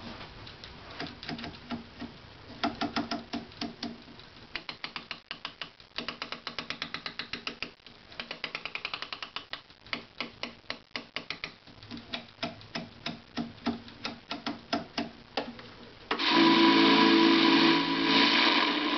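Rotary tuner knob of a 1983 Hitachi 13-inch television clicking through its detents, several clicks a second in runs with short pauses. About sixteen seconds in, the set's speaker suddenly comes on loud with broadcast sound.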